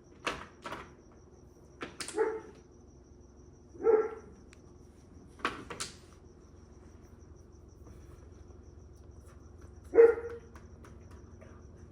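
Mahjong tiles clicking as they are set down and handled on the table, with a dog giving three short barks, the loudest near the end.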